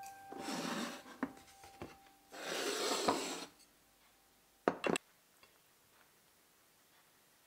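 Tableware being moved on a wooden table: two rough scraping sounds, each about a second long, with light knocks, then a quick pair of sharp clicks about five seconds in.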